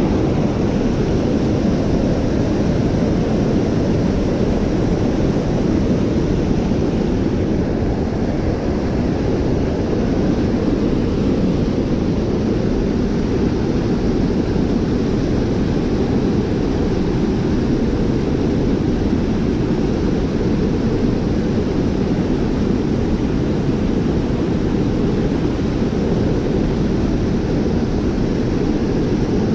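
Water pouring over a low river dam and churning through the white-water rapids below it: a loud, steady rushing sound, heaviest in the low range, that does not change.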